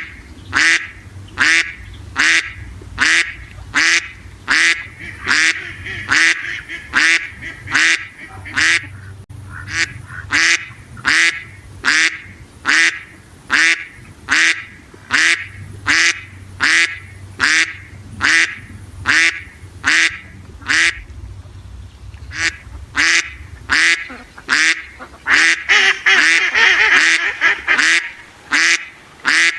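Duck quacking in a steady, even rhythm, about one and a half quacks a second, with a louder stretch of overlapping quacking near the end.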